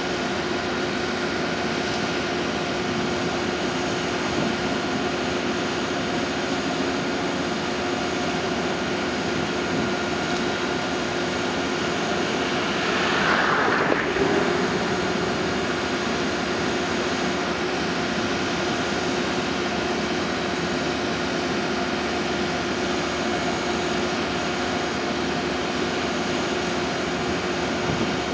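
Diesel locomotive engine running with a steady droning hum, with a brief swell of louder noise a little before halfway.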